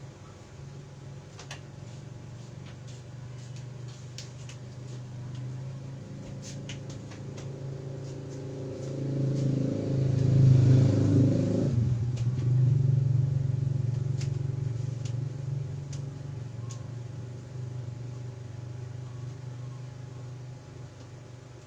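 A motor vehicle's engine hum that grows louder to a peak about halfway through, then slowly fades away, like a vehicle passing by.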